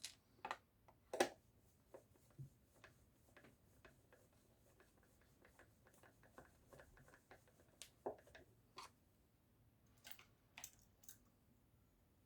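Irregular light clicks and taps of small parts and tools being handled at a workbench, with the sharpest click a little over a second in and a few more near 8 and 10–11 seconds.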